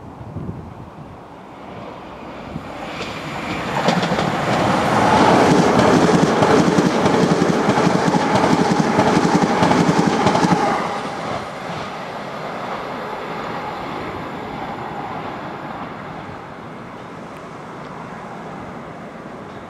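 A train passing through at speed, its wheels clattering over the rails. The sound builds over a couple of seconds, stays loud for about seven seconds, drops off sharply about ten seconds in, then fades away.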